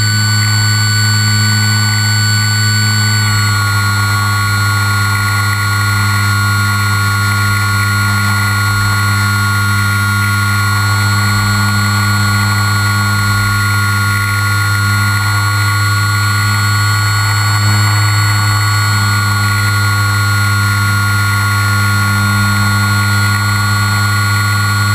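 Motors and propellers of the Ugly Eye RC aircraft, recorded from its onboard camera: a loud, steady whine made of several held pitches over a constant low hum, with a rush of air noise. The pitches shift slightly about three seconds in as the throttle changes.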